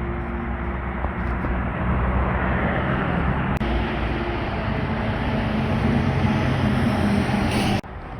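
Motor vehicle road noise: a steady rush of engine and tyre sound that swells slightly over the first seven seconds, then cuts off abruptly just before the end.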